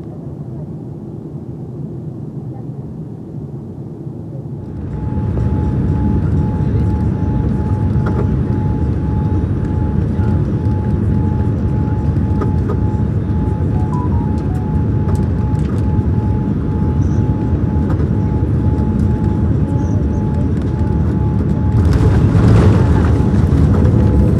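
Cabin noise in a Boeing 787-9 with Rolls-Royce Trent 1000 engines on final approach: a steady rumble of engines and airflow that steps up louder about five seconds in. Near the end a rush of noise comes as the main gear touches down and the jet rolls out on the runway with spoilers raised.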